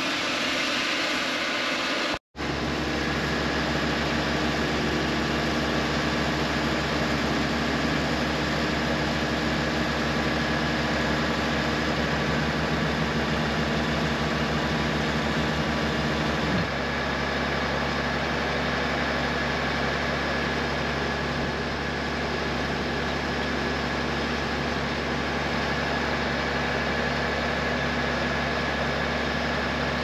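Tractor engine running steadily at constant speed beside a slurry tanker being filled by suction hose from an effluent bladder, with a thin steady whine over the engine hum. The sound cuts out briefly about two seconds in and shifts in tone about halfway through.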